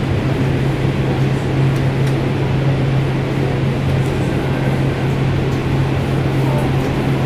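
Steady hum and low rumble inside a Kinkisharyo P3010 light rail car in service, holding one low droning tone throughout.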